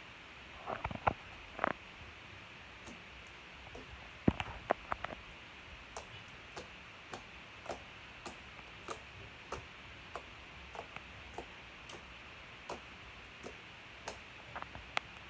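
Clear glitter slime being kneaded and folded into a large mixed lump, making sharp wet clicks and pops. A few loud clicks come in clusters near the start and about four seconds in, then a fairly even run of clicks follows, about one every half second or so.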